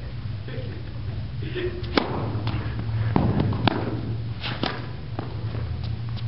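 Tennis rally on an indoor court: about half a dozen sharp pops and thuds of racket strikes and ball bounces, spread over a few seconds, above a steady low hum.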